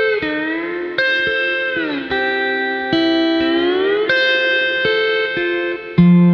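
Slide guitar music: plucked notes ring out, and several glide down and back up in pitch.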